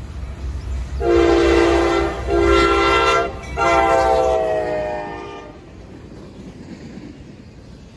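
Norfolk Southern diesel locomotives blowing a multi-note air horn three times as they pass: two blasts of about a second each, then a longer one of about two seconds that drops slightly in pitch, over the low rumble of the engines. The horn stops near the middle, leaving the quieter rumble of trailer-laden flatcars rolling by.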